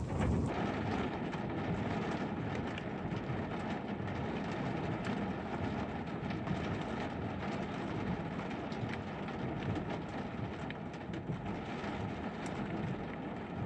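Rain falling on a car's windscreen, heard from inside the car with the windscreen wipers running, over a steady low rumble.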